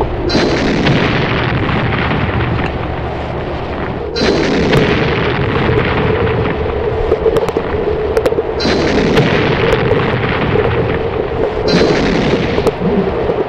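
Explosion sound effects: four loud blasts a few seconds apart, each trailing off into a long fading rumble before the next one hits.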